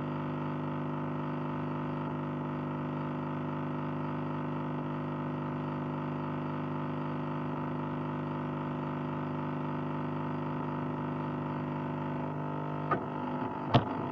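A steady buzzing hum with many overtones, unchanging in pitch, with two sharp clicks near the end.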